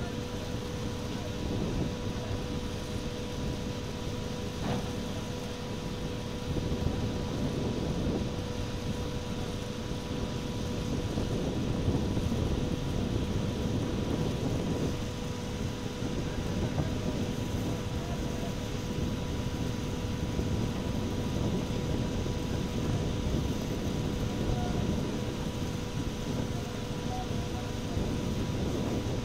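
Fishing vessel's engine running steadily at sea: a low drone with a steady whine over it, mixed with wind and water noise.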